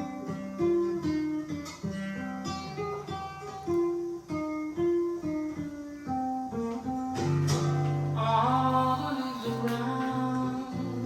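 Acoustic guitar music of plucked notes, played back through Klipsch La Scala horn loudspeakers driven by a Decware Zen Triode SE84UFO2 tube amplifier. A fuller passage with a deep sustained bass note comes in past the middle.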